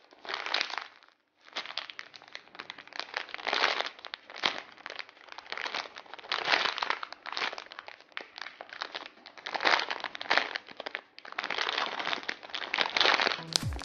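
Clear plastic packaging bag crinkling in repeated irregular bursts as the pineapple-shaped foam squishy toy sealed inside it is squeezed and turned in the hands.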